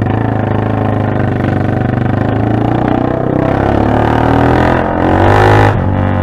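Motorcycle engine running with its muffler tip removed, only the bare exhaust pipe left, giving a loud open exhaust note. The pitch rises as it revs up about four to five seconds in, with a short rush near the end.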